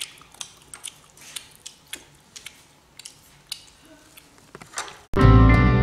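Light, irregular clinks and taps of spoons and chopsticks against ceramic bowls and a metal tray as people eat, a few a second. About five seconds in, loud guitar music starts suddenly.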